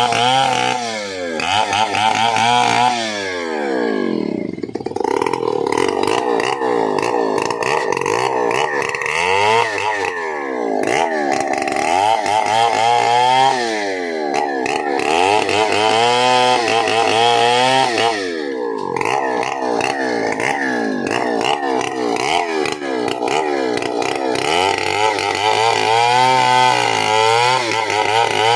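Stihl 070 chainsaw's big single-cylinder two-stroke engine running hard at high revs. Its pitch repeatedly sags and climbs back, dropping deeply a few times before winding up again.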